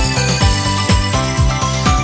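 Background music with a steady beat and bright chiming notes.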